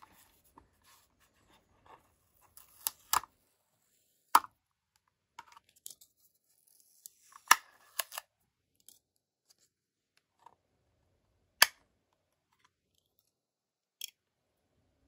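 Plastic clicks and taps from a DJI Mini 2 drone being handled, with soft rustling between: several sharp clicks spread out, as the blue protective strip is peeled off and the clear gimbal cover is unclipped.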